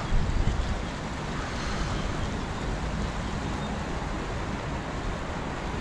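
Steady outdoor wind and river-water noise, with wind rumbling on the microphone. A few knocks in the first half second.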